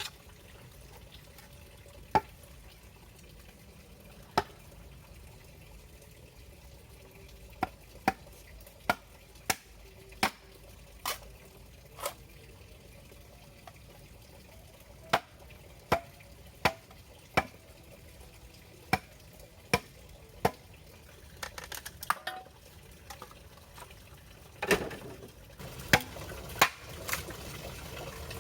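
Sharp taps or knocks, about twenty of them at irregular intervals and a little denser and louder near the end, over a faint steady hiss.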